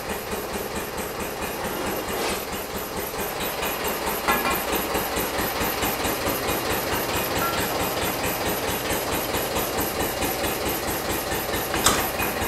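Hanomag R16 tractor's diesel engine running steadily with an even rhythmic beat. Three sharp knocks cut through it, the loudest near the end.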